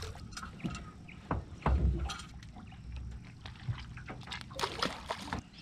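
Irregular knocks and clatter on an aluminium dinghy and light water splashing as a hooked whiting is brought up out of the water and into the boat, with a few dull thumps about two seconds in.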